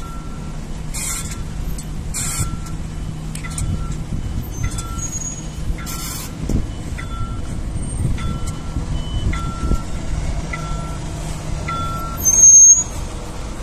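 City buses moving off and arriving: a steady low hum, a short high beep repeating about every three quarters of a second, and several hisses of air. Near the end comes a loud burst with a brief high squeal.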